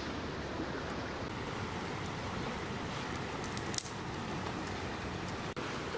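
Steady rushing of a stream, with a short click about four seconds in.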